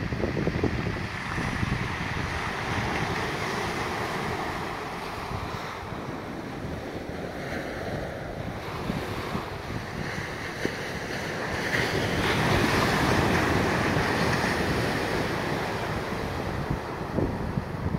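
Sea surf breaking and washing in along the shore, with wind buffeting the microphone. The surf swells louder about twelve seconds in.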